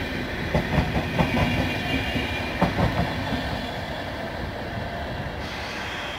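Passenger coaches rolling past, their wheels clicking over the track in a quick uneven run during the first three seconds. The clicking then gives way to a fading rumble as the train draws away.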